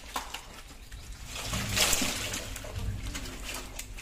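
Wet slapping and splashing of live fish squirming in a muddy net while a hand rummages through them, loudest about two seconds in.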